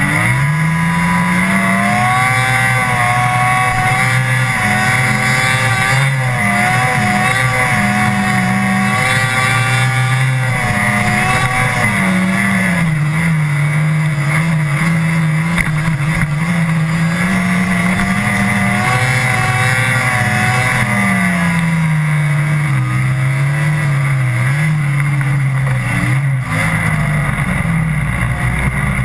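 Snowmobile engine running hard, heard close up from its hood. It revs up in the first second, then its pitch rises and falls again and again as the throttle changes.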